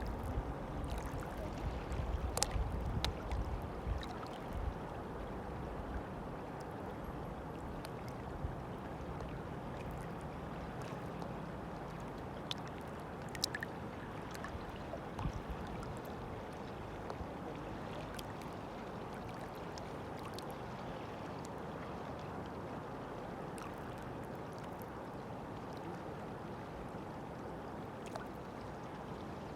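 River water flowing with a steady rushing sound. Low wind buffeting on the microphone in the first few seconds, and a few faint ticks and splashes over the flow.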